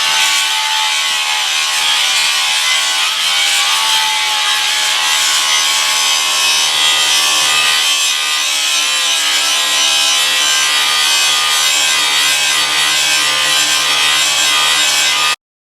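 Steady abrasive sanding noise with a constant tone running under it, stopping abruptly near the end.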